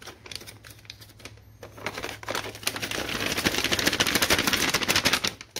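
Clear plastic bag crinkling as it is handled and rummaged in: a few scattered crackles at first, becoming a dense, loud crinkling from about two seconds in.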